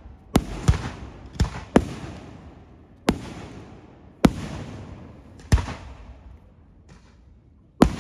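Fireworks going off: about eight sharp bangs at uneven intervals, the first four in two close pairs, each trailing off in a fading echo.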